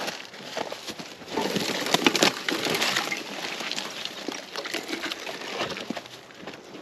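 Dry leaves, twigs and vines crunching and snapping in an irregular run of crackles and rustles as brush is handled around an overgrown motorcycle, busiest in the first half.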